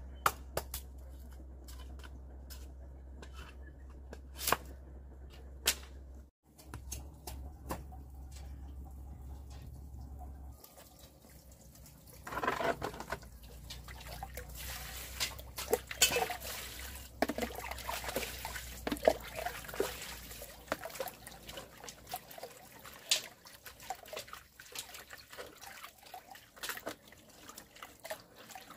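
Scattered clicks and knocks over a low hum, then, from about twelve seconds in, water splashing and trickling in irregular bursts.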